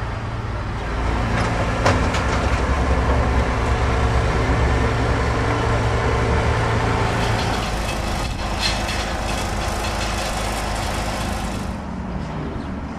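Heavy truck engine running steadily while moving a lowboy trailer. It grows louder about a second in and eases back after about seven seconds, with a few knocks around eight seconds in.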